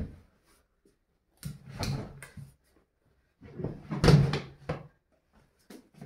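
A rolled carpet being pushed with the feet and unrolling across a laminate floor: two bouts of thudding and rustling, about one and a half seconds in and again around four seconds, the second the louder.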